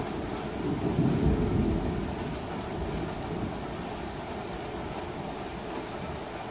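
Thunder rumbling low, swelling about a second in and then slowly dying away, over steady rain.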